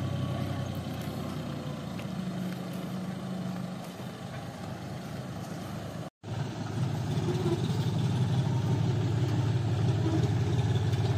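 John Deere 5050D tractor's three-cylinder diesel engine running steadily while driving on a dirt track. The hum fades a little, breaks off abruptly about six seconds in, then returns louder and close.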